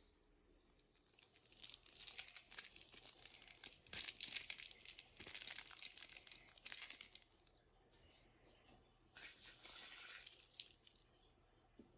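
Packaging being handled, crinkling and rustling in bursts: a long stretch from about a second in, then a shorter one after a pause.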